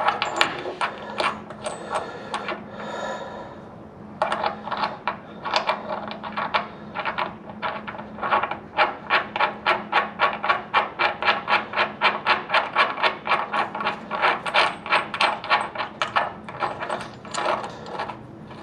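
Rapid metal-on-metal clicks from a hand tool working a new shock-absorber stud into a truck's front suspension. There are about four or five ringing ticks a second, in runs with short pauses between them.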